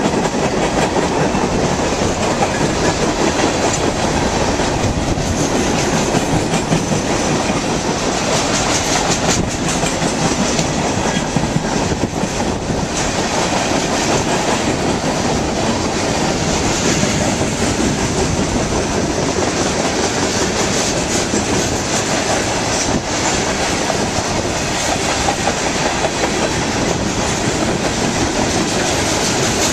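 Freight train's gondolas and covered hopper cars rolling past at close range: a loud, steady rumble of steel wheels on the rails.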